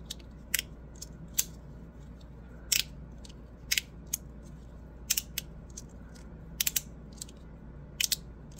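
Magnetic fidget slider being thumbed back and forth, clicking sharply as its plates snap from one position to the next: about a dozen clicks at uneven intervals of roughly a second, several coming in quick pairs.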